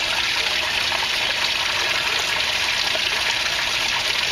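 Water pouring steadily into an aquaponics fish tank, an even, unbroken splashing trickle.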